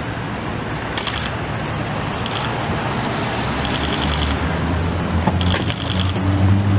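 City street noise, with several short bursts of rapid clicking and a low steady rumble of traffic that grows from about halfway through.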